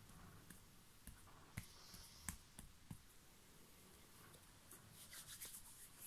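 Faint rubbing and light clicks from a hand moving close to the microphone, with a few sharper ticks in the first half and a quick run of ticks near the end.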